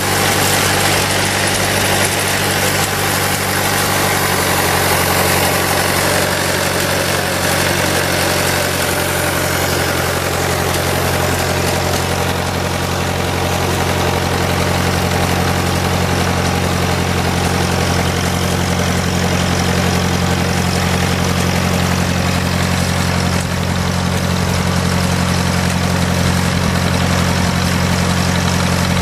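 Model T Ford four-cylinder engine running steadily, driving a reciprocating saw.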